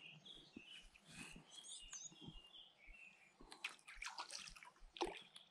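Near silence: faint birdsong chirping in the background, with a few soft water splashes in the second half.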